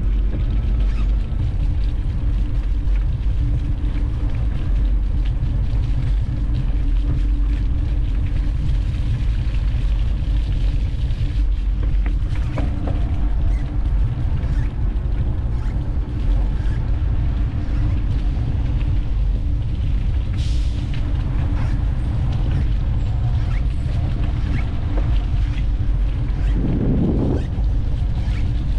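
Steady low rumble of wind buffeting an action camera's microphone on a moving bicycle, with a faint steady hum and a few light knocks from the bike over the path.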